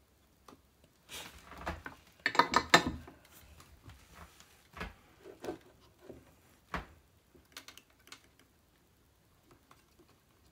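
Handling noise from a loaded Stratocaster pickguard and its wiring on a wooden bench. A burst of rustling and clattering knocks comes about a second in and is loudest near three seconds, followed by scattered light clicks and taps as the switch wires are handled.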